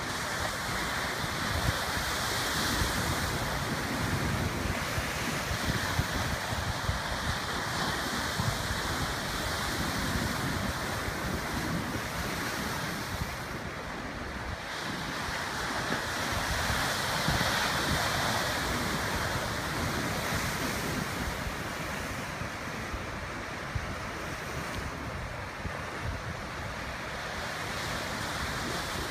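Ocean surf washing in along a tide-pool shoreline, rising and falling in several slow surges, with wind buffeting the microphone.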